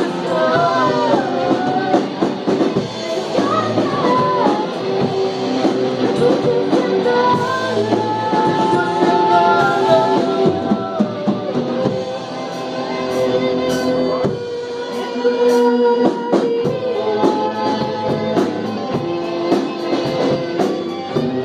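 Live rock band playing: amplified electric guitar and a drum kit with cymbals, with a sung vocal over them.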